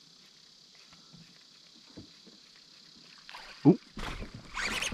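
A small bass hits the topwater frog with one short, loud low gulp about three and a half seconds in. Splashing on the surface follows as the fish is hooked.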